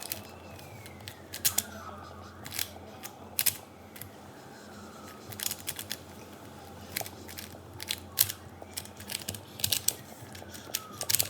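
Magnetic speedcube being turned fast during a timed solve: bursts of sharp plastic clicks and clacks as the layers snap into place. A faint siren wails in the background at the start and again near the end.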